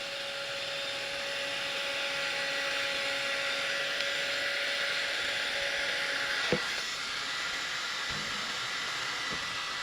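Remington hot-air brush dryer running steadily, a continuous blowing hiss with a faint motor whine. A short knock about six and a half seconds in.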